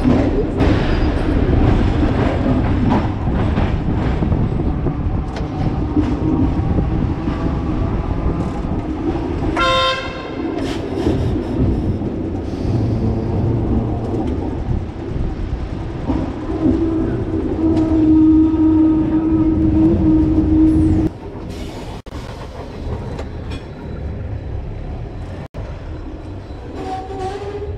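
Electric tram running on street track, heard from the driver's cab: steady rumble of the wheels on the rails and the traction motor. A short pitched warning signal sounds about ten seconds in, and the running noise drops suddenly about 21 seconds in.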